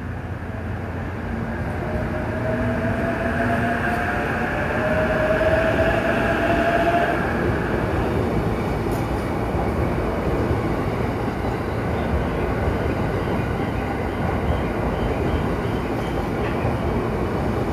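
JR E353 series electric train running past close by: a steady rumble of wheels on rail that builds over the first several seconds, with a rising motor whine during those first seconds.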